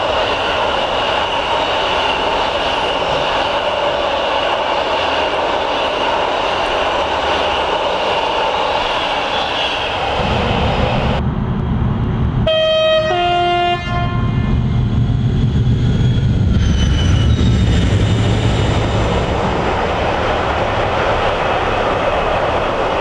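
Loaded log wagons rumble past on the rails with a steady high squeal. About ten seconds in, the deep rumble of a pair of Class 56 diesel locomotives builds. About twelve seconds in, a locomotive gives a short two-tone horn blast, and the engines then run on under load as the train passes.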